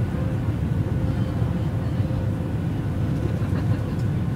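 Boeing 737 jet engines and rushing air heard from inside the cabin during the climb after takeoff: a steady low rumble with a faint, even hum above it.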